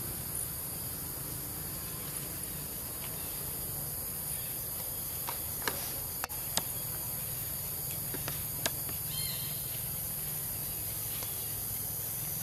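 Steady high-pitched insect drone of forest ambience, over a low rumble, with a handful of sharp clicks around the middle and a brief chirp soon after.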